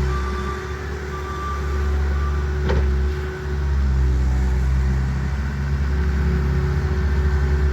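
A Bobcat skid-steer loader's engine runs steadily while working, its level dipping and rising as the load changes. There is a sharp click or knock just before three seconds in.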